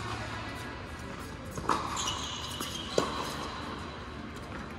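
Tennis ball pops in a doubles rally on a hard court: two sharp strikes about a second and a half apart, with a brief high squeak between them.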